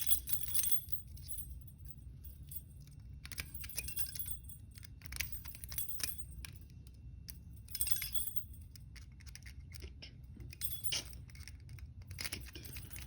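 Lock picks and a tension tool clicking, scraping and rattling in the keyway of an ABUS 55/40 brass padlock, in short bursts every second or few.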